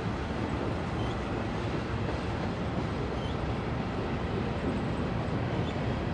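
Freight train of covered hopper cars rolling along the track with a steady rumble as its EMD SD40-2 locomotives pull away.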